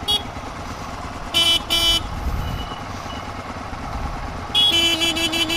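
Motorcycle horns tooting over idling engines: two short beeps about a second and a half in, then a quick run of beeps near the end.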